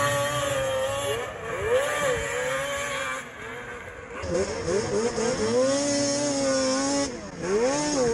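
Racing snowmobile engines revving hard, their pitch rising and falling with the throttle. In the second half one engine is heard close up, and near the end its pitch drops briefly and climbs again.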